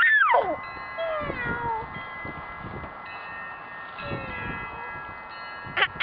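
A domestic cat meowing three times, each a falling call, over steady high ringing tones. A quick run of short loud calls begins right at the end.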